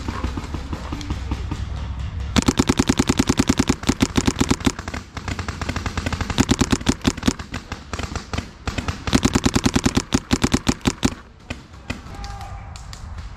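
Paintball marker firing rapid strings of shots, about ten a second, in three bursts: the first about two seconds in, the others near the middle and about two thirds of the way through.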